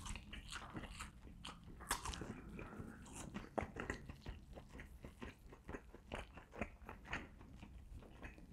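Close-miked chewing of a mouthful of rotisserie chicken: soft, irregular wet mouth clicks and smacks.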